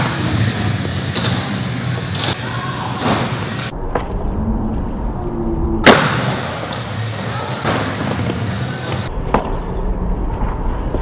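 Background music with skateboard board impacts from flatground tricks: several knocks and one sharp, loud slap about six seconds in.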